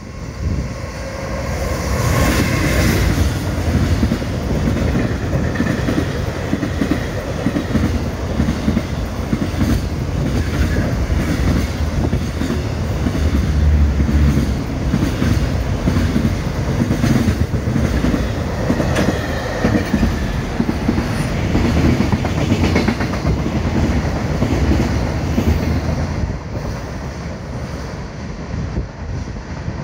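EF210 electric locomotive and its long container freight train passing through a station without stopping: a heavy rumble with the clickety-clack of wheels over rail joints. It builds about two seconds in as the locomotive arrives and tails off in the last few seconds as the last wagons go by.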